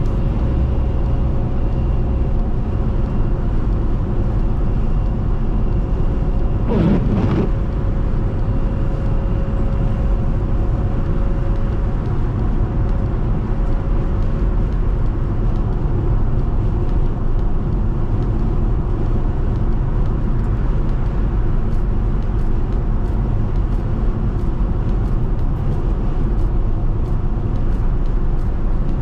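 Steady low road rumble of a car driving on the interstate, with a brief rising sound about seven seconds in.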